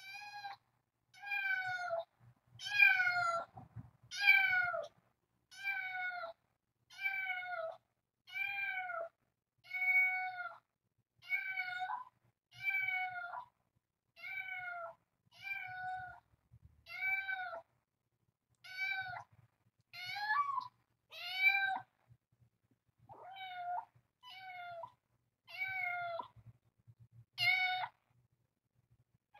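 A cat meowing over and over, about one short meow a second, each call dipping in pitch at its end, with a few slightly longer pauses between calls.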